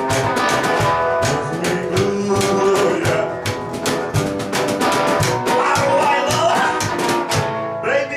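A live band playing acoustically: upright double bass plucked by hand, with guitar and a steady beat of sharp percussive strokes, and a voice singing.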